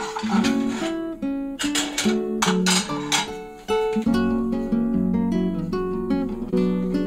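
Acoustic guitar music, plucked and strummed, with notes changing in a steady flow.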